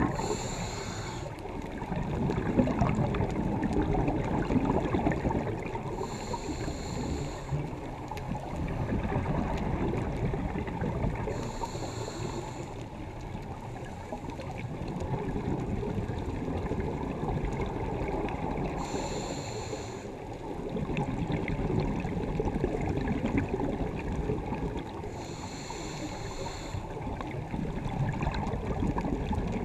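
Scuba diver breathing through a regulator underwater: a short hiss on each inhale, about every six to seven seconds, followed by a long stretch of bubbling as the exhaled air escapes.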